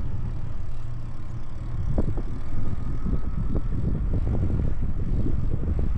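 Wind buffeting the microphone during a ride, a steady low rumble with short irregular thumps.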